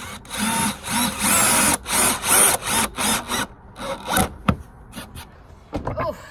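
Craftsman V20 cordless drill driving a concrete screw into cement backer board, running in several short bursts in the first few seconds as the screw is sunk flush, then a few quieter clicks.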